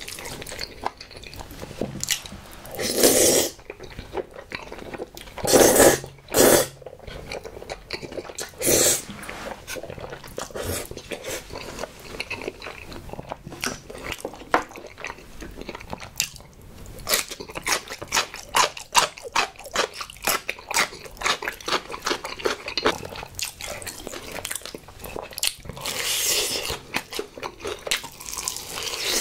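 Close-miked eating sounds: several loud slurping pulls of cream pasta in the first ten seconds, then wet chewing with rapid clicks and crunches. Near the end comes a bite into a fried honey chicken drumstick.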